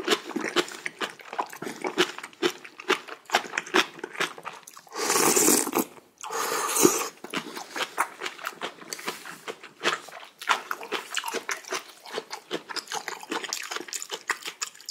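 Close-miked eating of soup-soaked rice and kimchi: wet chewing and mouth clicks come thick and irregular throughout. About five seconds in there is a long loud breathy rush of air at the mouth, and a shorter one follows just after.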